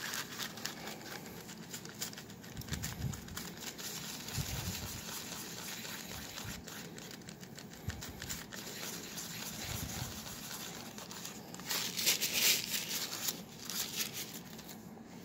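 A soft wipe rubbing back and forth across the screen of a Fluke 744 process calibrator: faint scratchy rustling and swishing, with a louder stretch of rubbing about three-quarters of the way through.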